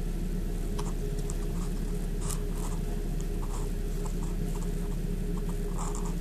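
Light scattered crackles and rustles of shredded paper bedding, a dozen or so short ticks, over a steady low hum.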